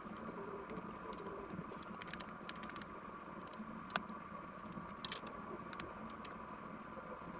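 Faint, scattered small clicks and crackles, with two sharper clicks about four and five seconds in, over a steady faint hum.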